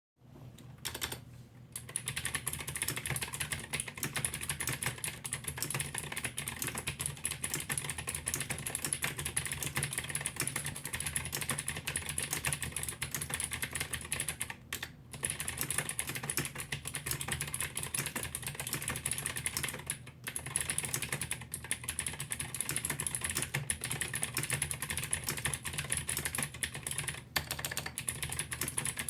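Varmilo VA87MR mechanical keyboard with clicky Gateron Blue switches being typed on fast and continuously, a dense stream of sharp key clicks with a few short pauses.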